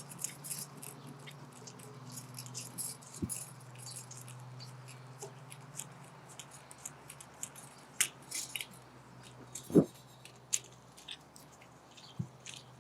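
Stainless steel mounting straps being tightened at their worm-screw clamps, heard as irregular small metallic clicks and scrapes, with one louder knock about ten seconds in. A steady low hum sits underneath.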